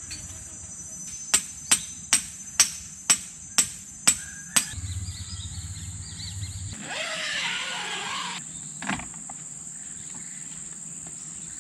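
A tent stake for a guy line being hammered into the ground: eight sharp strikes, about two a second, followed by a stretch of rustling. A steady high insect drone runs underneath throughout.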